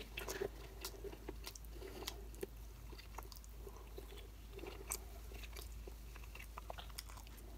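Faint close-up chewing of a mouthful of rice and vegetables, with scattered soft wet mouth clicks and smacks.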